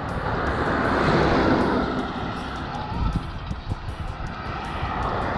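Wind buffeting the microphone of a bicycle-mounted action camera while riding along a highway shoulder, with traffic noise from a passing vehicle swelling about a second in and fading away.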